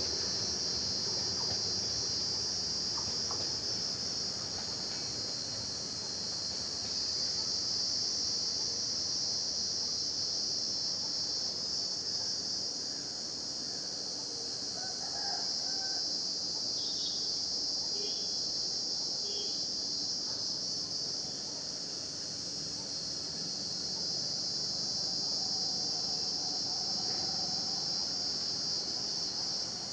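A steady, high-pitched chorus of insects chirring without a break. Under it, in the first few seconds, the low rumble of a departing train fades away.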